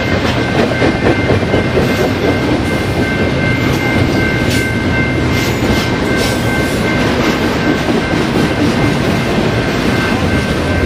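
A double-stack intermodal container train passing close by. Its steel wheels make a steady rolling rumble on the rails, with a steady high-pitched ring over it and a few sharp clicks about halfway through.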